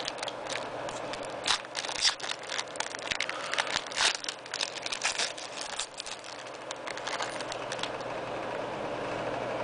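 Foil 2004-05 Hoops basketball card pack torn open and crinkled by hand, then the cards inside slid out and fanned. Irregular crackling and rustling, busiest in the first six seconds and calmer after.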